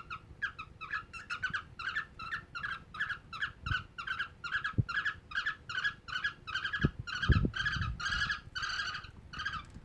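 Cockatiel giving rapid, repeated short chirps, about three a second: the rhythmic calling of a male cockatiel mating a female. A few soft low knocks come in between, about halfway through and near the end.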